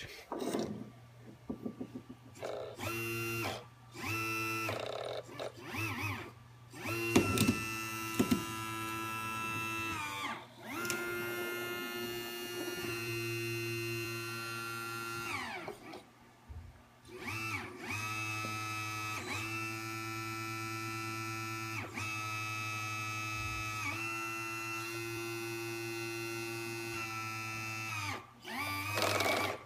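Liebherr 922 excavator's hydraulics whining in a string of held tones, each a second to several seconds long, with the pitch bending at the start and end of each as the controls are worked. Under them runs the steady low hum of the running machine.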